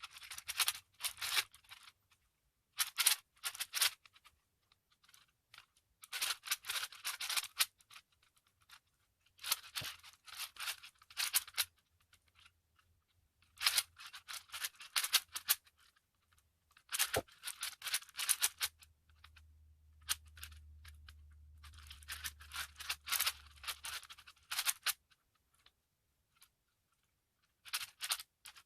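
Plastic speed cube being turned rapidly during a solve, its layers clacking in fast runs of clicks that come in bursts of a second or two with brief pauses between them.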